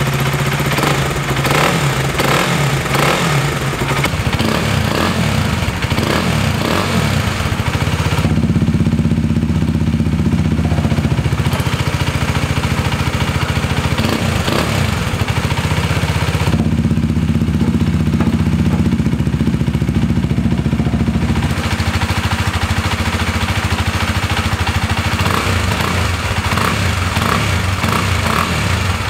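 KTM 250 Duke's single-cylinder engine running without its stock silencer fitted, loud and raw from the open pipe, with the engine speed stepping up and back a few times.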